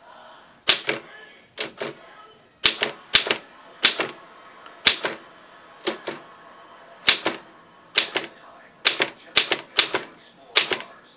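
Keys of a 1931 Royal 10 manual typewriter being struck, each typebar hitting the platen with a sharp clack. About sixteen strokes come at an uneven pace, some in quick pairs.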